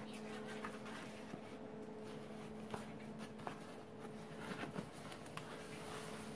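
Foam sheet packaging wrap rustling and crinkling faintly as it is pulled off a globe, with small scattered crackles, a few sharper ones in the middle, over a steady low hum.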